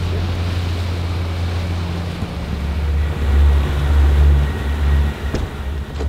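Boston Whaler's outboard motor running at idle speed, a steady low hum over wind and water noise. About two seconds in, the engine note drops lower and grows louder for a couple of seconds.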